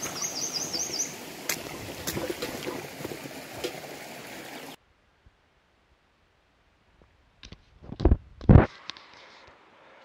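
Shallow stream water running over stones, with a bird's quick run of high chirps in the first second. The water sound cuts off abruptly about halfway, and a few sharp, loud knocks come near the end.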